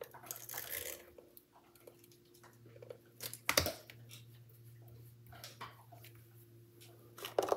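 Tape runner rolling adhesive onto cardstock, then paper strips being handled and pressed together, with small scattered clicks and rustles. A single sharp click about three and a half seconds in, likely the tape runner set down on the table.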